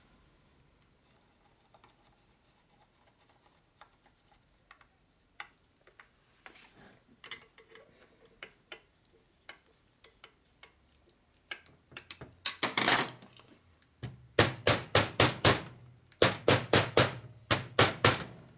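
Light, quick hammer taps on the side cover of a 1942 Harley-Davidson WLA transmission, in short runs of about four or five taps a second, seating the cover evenly against a gasket that has shrunk. Before the tapping there are faint clicks of handling screws and tools, and a short scrape about twelve seconds in.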